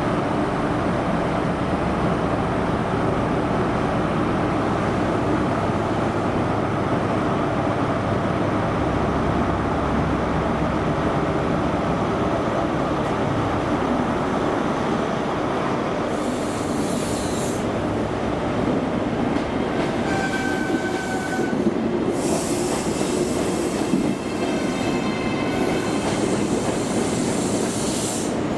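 ScotRail Inter7City HST, a diesel train of Class 43 power cars and Mk3 coaches, running loud and steady at the platform. In the second half, high-pitched wheel squeals and rail clatter come in as the coaches roll past.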